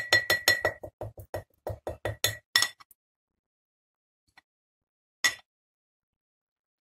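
Glass jar clinking in a quick run of sharp, ringing taps that slow and stop after about three seconds, then one more single clink about five seconds in.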